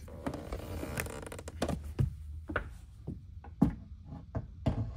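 Several light knocks and clunks as a Humminbird fish-finder display is handled and set onto its console mount, over a low steady hum.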